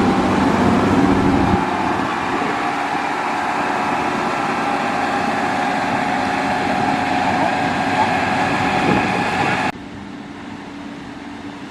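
Heavy construction machinery running steadily, with a steady mechanical whine over the engine. About a second and a half in the deep rumble drops away, and near the end the sound cuts suddenly to a quieter rumble.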